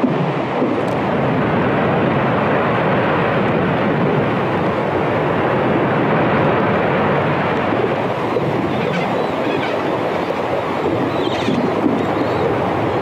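Hydrophone recording of melting glacier ice underwater: a steady, dense hiss and crackle, with a few faint clicks in the later part.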